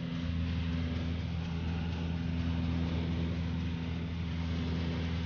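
Single-engine light aircraft's engine and propeller holding a steady drone in cruise, heard from inside the cabin, with an even rush of air noise.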